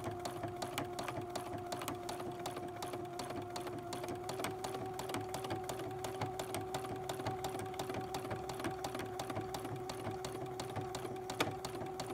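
Domestic sewing machine doing free-motion embroidery stitching: a steady motor hum with rapid clicking of the needle. The hum steps up slightly in pitch about four seconds in as the machine speeds up a little.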